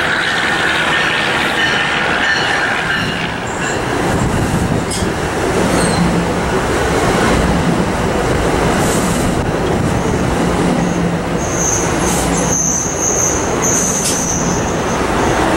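Passenger train running by on the rails with a steady rumble of wheels and cars. About eleven seconds in, a high-pitched wheel squeal rises over it and lasts about three seconds.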